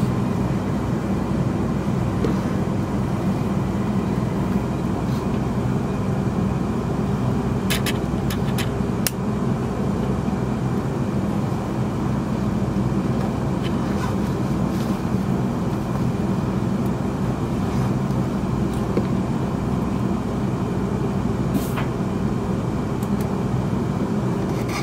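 Steady rumble inside the carriage of a Class 350 electric multiple unit running slowly alongside a station platform, with a few short, sharp clicks.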